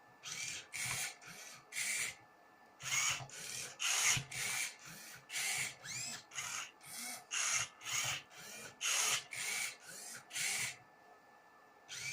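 Motors of a prototype Rubik's cube solving robot turning the cube's faces: a rapid series of short whirring turns, about two a second, some with a whine that rises and falls, with a short pause just before the end.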